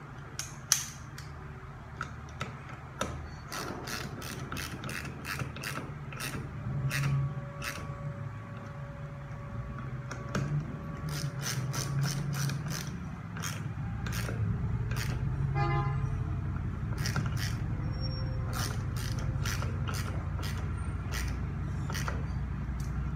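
A hand ratchet clicking in quick, uneven runs as the bolts holding a new conductor plate are run down on a Mercedes 722.6 transmission valve body.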